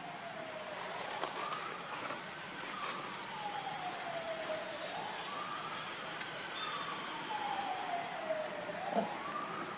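A distant siren wailing. Its pitch falls slowly over about two seconds, then sweeps back up quickly, a little under three times.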